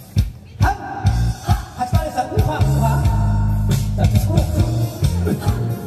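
Loud amplified band music with a bass line and a steady drum beat.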